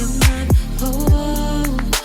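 Background music: a mellow R&B-style track with a steady beat of kick-drum hits and a melody line.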